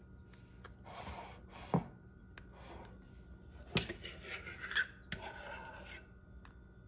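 Metal spoon scraping against a glass trifle bowl while spreading chocolate pudding, with a few sharp clicks of metal on glass.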